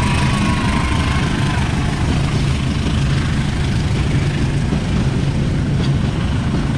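Diesel-hauled freight train of fuel tank wagons rolling past close by: a loud, steady rumble of wagons on the rails, with the locomotive's engine running as it moves off at the start.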